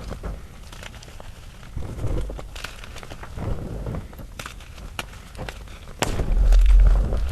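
Gym chalk being crushed and worked by hand, played at double speed: a run of dry snaps and crackles. About six seconds in comes a louder, deeper thud.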